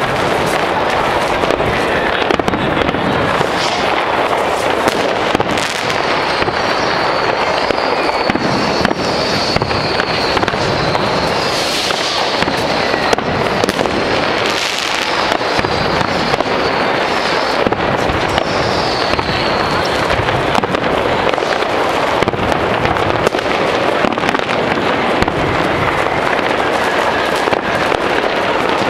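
A dense fireworks barrage: bangs and crackling pile on one another without a break. A high whistle holds for several seconds from about a fifth of the way in, and a shorter one comes about two-thirds through.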